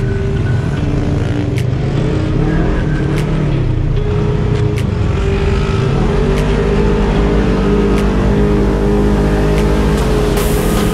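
Polaris RZR 1000 side-by-side engine running under throttle while climbing through soft sand. Its pitch rises and falls with the throttle over a steady low rumble.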